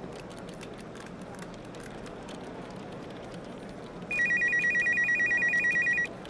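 Restaurant ambience with a steady murmur and scattered clinks. About four seconds in, an electronic telephone ringer trills loudly for about two seconds, warbling rapidly between two high tones, then stops abruptly.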